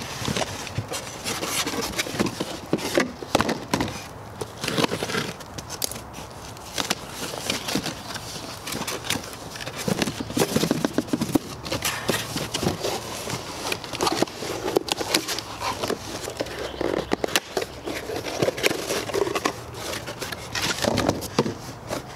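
Cardboard shipping boxes being slit open with a knife and their flaps pulled apart and handled: irregular scraping, rubbing and crackling of cardboard, with light knocks.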